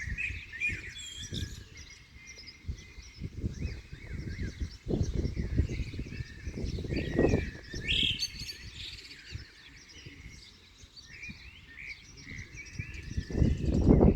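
Wind gusting over the microphone in uneven low rumbles, strongest about halfway through and near the end, with small birds chirping throughout.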